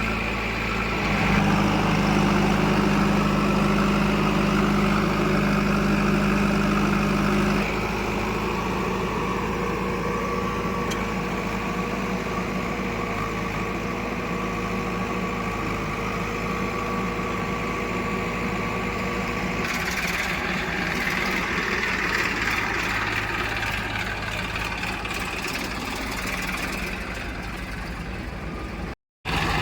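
Heavy diesel engine running steadily at a low idle-like speed, its sound shifting abruptly about a second in, about eight seconds in and about twenty seconds in, with a brief dropout near the end.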